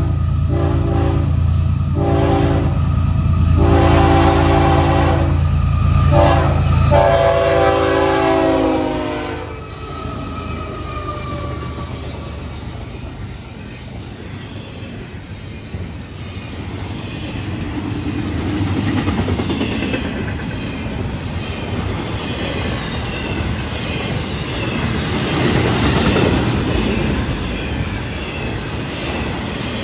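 Florida East Coast Railway GE ES44C4 diesel locomotives sounding the train horn in several blasts for a grade crossing over the engines' low rumble; the final long blast drops in pitch as the locomotives pass, about nine seconds in. Then the intermodal train's cars roll by with steady wheel-on-rail noise, clickety-clack and some faint wheel squeal.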